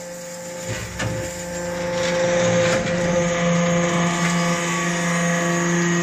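Hydraulic metal-chip briquetting press running with a steady hum while metal chips pour into its steel hopper; the sound grows louder about two seconds in.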